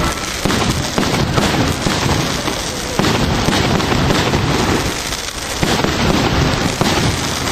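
Display fireworks launching and bursting in quick succession: a dense, almost unbroken run of loud bangs and crackle, easing briefly about five seconds in.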